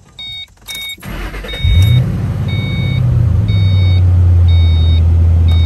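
S197 Ford Mustang engine cranked and started: the starter turns briefly, the engine catches with a short rev flare about two seconds in, then settles to a steady idle. A door-ajar warning chime beeps throughout, about twice a second at first, then about once a second.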